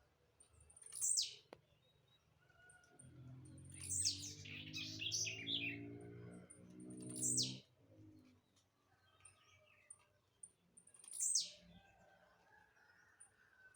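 Blue-black grassquit singing its short falling 'tiziu' note three times, about a second, seven seconds and eleven seconds in, with other chirps around the middle. Between about three and seven and a half seconds a low cooing call sounds under it.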